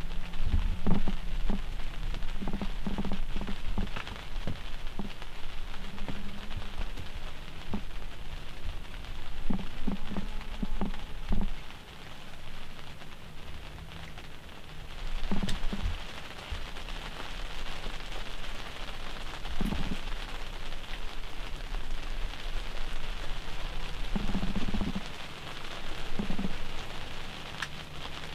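Rain pattering steadily on a hunting blind, a continuous hiss with scattered low knocks and thuds in several clusters.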